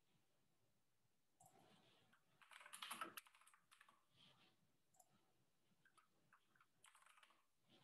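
Faint, irregular clicking and tapping, like typing on a computer keyboard, over near silence, with the busiest run of keystrokes about three seconds in.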